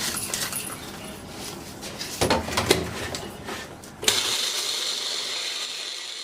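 A few knocks and clatter, then about four seconds in a kitchen mixer-grinder starts and runs steadily, grinding dry-roasted whole spices to powder.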